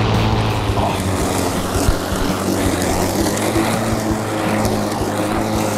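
Battery-powered push lawn mower running steadily, its motor and spinning blade making a continuous hum as it cuts grass.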